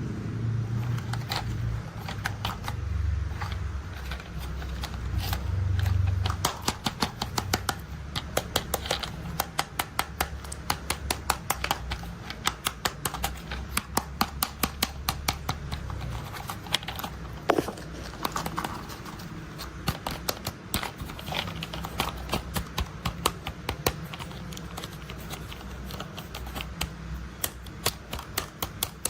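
Quick, irregular tapping and clicking on toy construction vehicles, several clicks a second, with a low rumble under it for the first six seconds or so.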